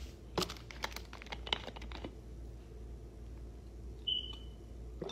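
Light sharp clicks and crackles of a plastic drink bottle being handled and its cap twisted open, several in the first two seconds, then a short high ping that fades about four seconds in.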